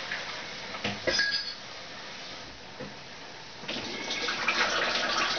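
Water running from a kitchen tap as cabbage is rinsed, with a sharp clink about a second in. The running water gets louder near the end.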